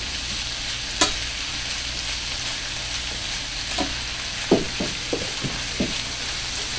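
Stir-fry vegetables sizzling steadily in a small skillet while a spatula stirs them. There is one sharp tap about a second in, and several quick stirring strokes against the pan in the second half.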